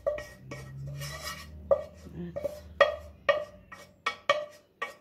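Frying pan being scraped out with a spatula over a metal tray: a run of a dozen or so sharp, irregular clanks and knocks, each with a short ring.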